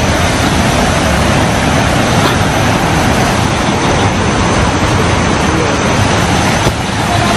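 Loud, steady rush of a fast-flowing river current.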